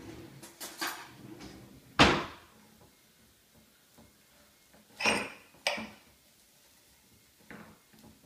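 A metal utensil knocking and scraping against a glass baking dish while cutting into a block of Rice Krispie treats: a few sharp clunks, the loudest about two seconds in, two more around five seconds in, and fainter ones near the end.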